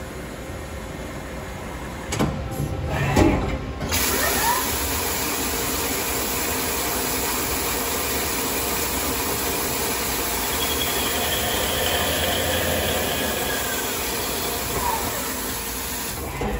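CNC lathe cutting a bar held in its chuck: a few knocks, then about four seconds in the spindle spins up with a rising whine and coolant spray sets in as a steady loud hiss over the cut. The spindle whine falls away near the end.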